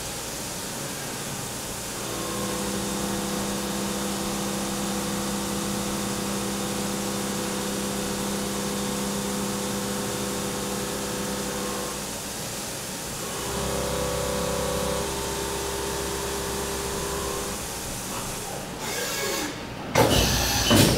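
Doosan DNM 5700L vertical machining center milling titanium 6Al-4V with a half-inch carbide end mill under flood coolant: a steady spindle and cutting tone over the hiss of coolant spray, its pitch changing about twelve and fourteen seconds in. Near the end come a few loud sudden knocks and bursts of noise.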